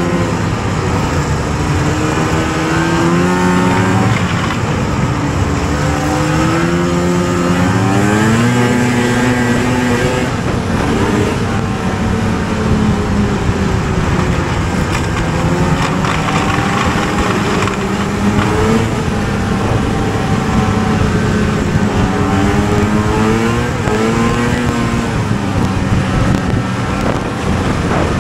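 Two-stroke snowmobile engine heard from the rider's seat, revving up and easing off several times as the sled runs along the trail. A steady rushing noise runs underneath.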